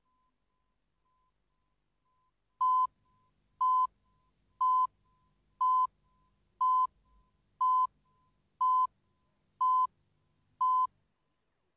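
Countdown leader beeps: a short, steady, pure test-tone pip once a second, nine in a row, starting about three seconds in, one for each number of the countdown.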